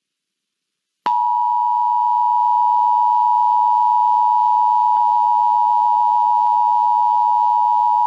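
Emergency Alert System attention signal: the broadcast two-tone alert (853 and 960 Hz together) starting about a second in and holding steady. It is the alert tone that follows the digital header bursts and comes just before the spoken test message.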